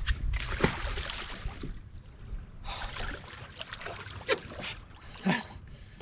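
Wind rumbling on the microphone, with two spells of splashing at the water's surface, one at the start and another about three seconds in, as catfish are released over the side of a boat.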